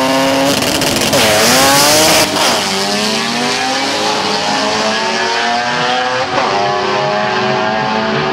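Turbocharged 13B rotary engine of a Mazda RX3 drag car launching and accelerating hard down the strip, a loud hiss over the first couple of seconds. Its pitch climbs, falls back and climbs again at each gear change, about one, two and six seconds in.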